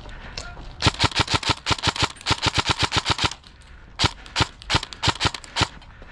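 Airsoft electric gun (AEG) firing rapid strings of shots, about eight a second, with a longer string, a short pause, then a looser run of shots.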